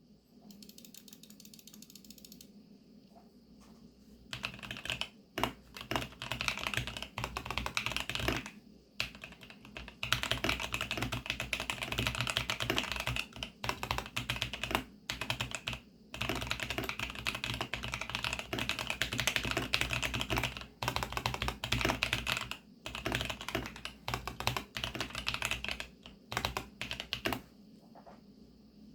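Typing on a VARO V68 68-key mechanical keyboard with Cocoa Silver switches: fast, dense runs of keystrokes broken by several short pauses. The typing starts about four seconds in and stops shortly before the end.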